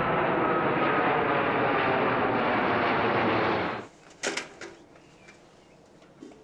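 Jet airliner flying overhead, a steady loud rush of engine noise that cuts off suddenly about four seconds in. Then two light clinks of galvanized metal buckets being handled.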